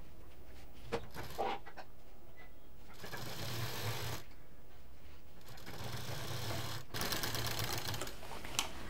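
Domestic sewing machine stitching piping onto fabric in three short runs, starting about three seconds in, with a couple of light clicks before it as the cloth is set under the foot.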